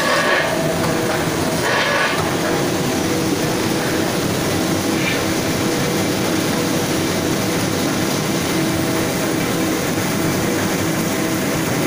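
Automatic corrugated board plant running, a steady mechanical drone with a low hum from its motors and rollers as the board feeds through.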